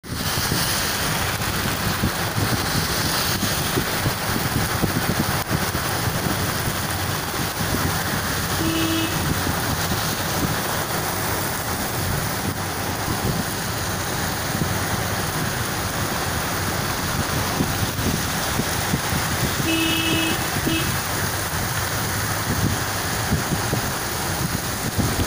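Heavy rain pouring down on a wet road, a steady hiss with traffic passing through it. A car horn beeps briefly about nine seconds in, and honks again for about a second, with a short extra toot, near twenty seconds.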